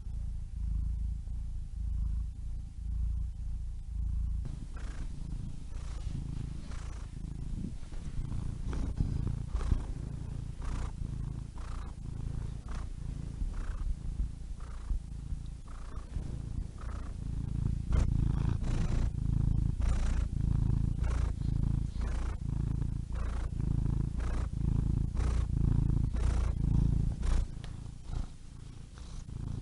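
Domestic cat purring close up: a steady low rumble that pulses with its breathing, a little more than once a second, easing briefly near the end.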